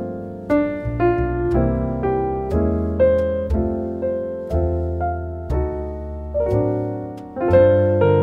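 Background music: a slow, calm solo piano playing chords and melody notes that ring and fade, a new note or chord every half second to second.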